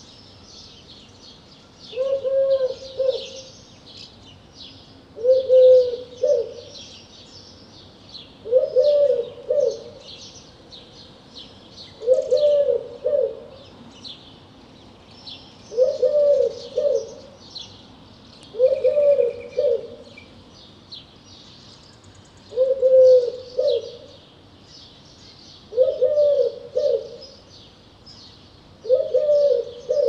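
Eurasian collared dove singing its three-note coo, repeated nine times about every three to four seconds. Many small songbirds chirp steadily in the background.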